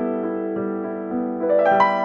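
Background piano music, soft and slow, with sustained notes and a few new notes struck near the end.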